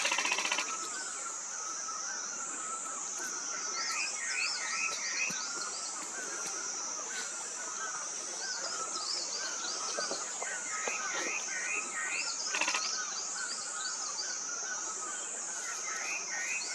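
Birds chirping in quick groups of three or four short notes, over a steady, slowly wavering high-pitched drone. A loud buzz cuts off about half a second in.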